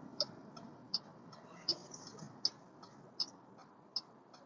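A car's turn signal ticking steadily, a sharp click about every three-quarters of a second, over a faint low hum of the car.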